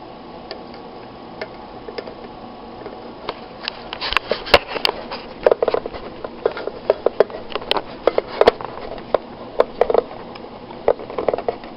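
Clicks and knocks of an RCA cable being handled and its plug pushed into the output jack of a phono preamp, coming in a busy, irregular run from about four seconds in.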